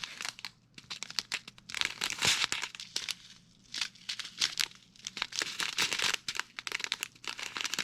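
Small plastic bags of diamond-painting drills crinkling as they are handled, in irregular bursts with short pauses between.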